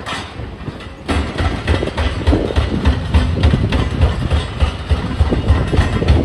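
Demolition excavators working a rubble pile: diesel engines running under a dense clatter of crunching and knocking concrete and debris, louder from about a second in.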